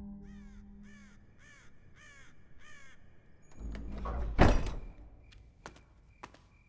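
A crow cawing, a run of about six harsh falling caws at about two a second, followed by a low swelling whoosh that ends in a loud heavy thud, then a few faint clicks.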